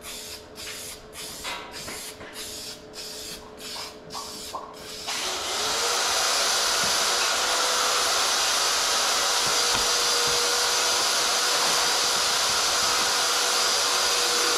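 Aerosol spray paint can spraying: short broken spurts of hiss for about the first five seconds, then one long continuous spray. A thin steady whine runs underneath.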